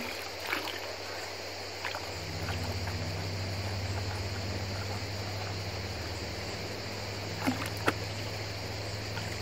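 Gold panning in a shallow river: water sloshing in a gold pan and riverbed gravel being dug with a small hand tool, with a few sharp clicks of stone, two close together near the end. A low steady motor hum comes in about two seconds in.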